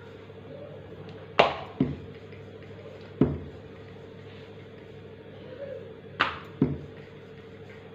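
Wooden rolling pin knocking on a marble countertop while a disc of dough is rolled out and turned: five sharp knocks, the loudest about a second and a half in, two close together near the start and two near the end. A steady hum runs underneath.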